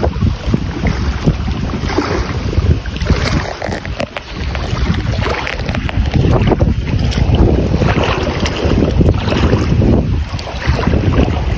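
Wind buffeting the microphone: a loud, gusty rumble that rises and falls unevenly.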